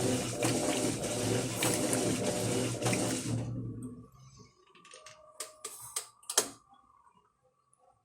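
Electrolux LF10 top-loading washing machine agitating a load of blankets: motor hum with water churning and clicking, stopping about three and a half seconds in. A few faint clicks follow in the quiet pause of the wash cycle.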